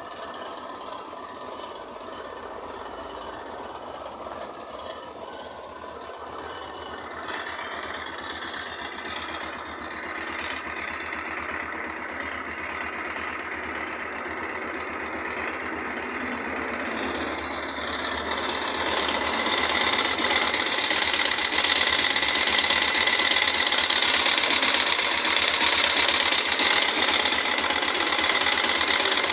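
Honda NX-400 Falcon's single-cylinder four-stroke engine idling on its side stand, with a noise from the cylinder head that shows up only while the bike leans to the left and stops when it is straightened. It gets louder and brighter about 18 seconds in.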